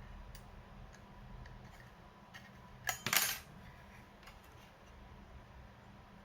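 Light clicks and taps from small hard laptop parts being handled during a drive swap, with a brief clatter of a few quick hits about three seconds in.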